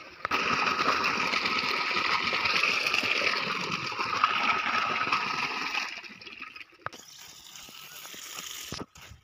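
Water gushing from an irrigation pipe outlet into a cement tank, a loud, steady rush. About six seconds in it drops suddenly to a quieter flow of water.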